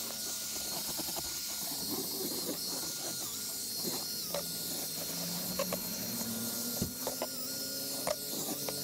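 A pressurized detailing jet hissing steadily, with scattered light clicks and knocks over it.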